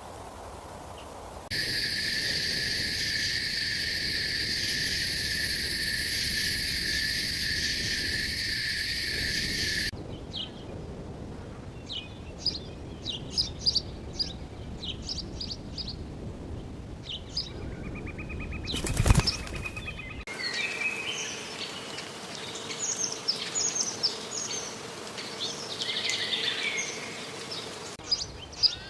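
Songbirds chirping and singing in short, varied notes, in several spliced recordings. A steady high drone runs for about eight seconds near the start, and a brief loud thump comes about two-thirds of the way in.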